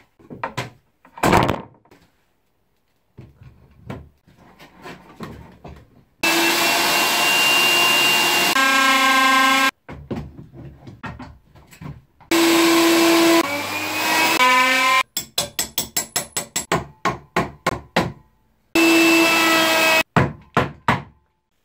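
Bosch plunge router running in three loud spells while cutting a 9 mm groove along a wooden board, each spell starting and stopping abruptly. Its whine drops in pitch partway through the first spell. Between the spells come short knocks and a quick run of about five clicks a second.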